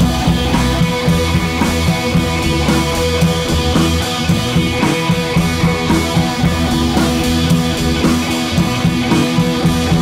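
Background music with guitar and a steady drum beat.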